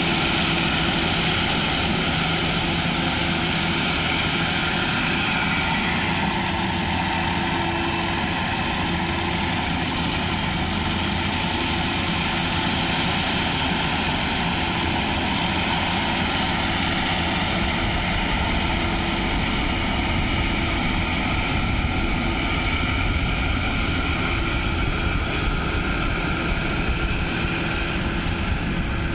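Engine of a rice-harvesting machine running steadily with a continuous mechanical hum; the low rumble grows heavier about two-thirds of the way through.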